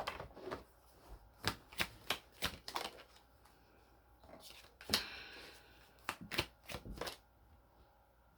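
Tarot cards being handled: a scattering of short, sharp snaps and taps as cards are shuffled, flicked and laid down, with one louder snap and a brief slide about five seconds in.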